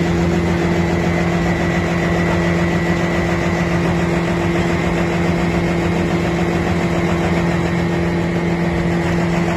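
2113 wood chipper running at a constant speed with an unchanging hum, no material being fed through it.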